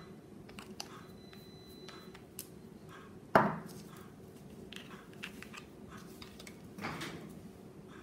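Small clicks and taps of nail-art tools and plastic items handled on a table, with one sharp knock about three and a half seconds in and a softer one near seven seconds.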